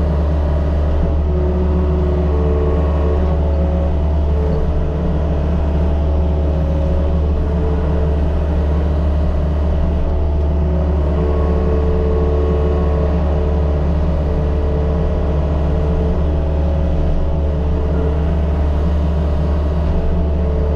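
Mini excavator's diesel engine running steadily under working load, with higher whining tones from the hydraulics coming and going over the engine note.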